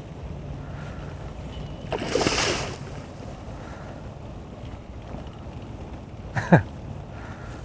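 A hooked pike splashes at the surface beside the boat about two seconds in, over the low steady running of the boat's outboard motor. A brief sharp falling sound follows about six and a half seconds in.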